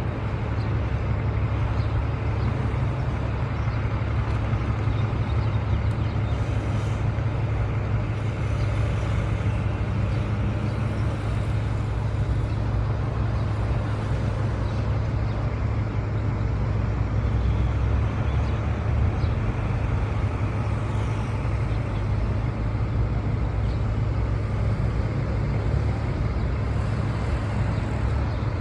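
Steady low rumble with even road noise from a moving vehicle, holding level throughout with no change in pitch.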